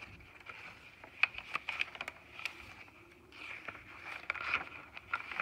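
Paper pages and card inserts of a handmade junk journal being turned and handled: rustling with scattered sharp ticks and taps about a second in, and a longer rustle in the second half as a page is flipped over.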